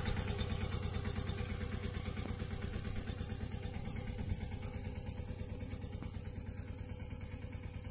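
Small tractor engine running steadily with a rapid, even chugging.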